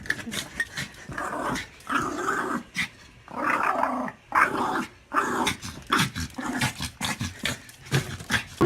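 A dog growling in a series of rough, uneven bursts, some lasting about a second.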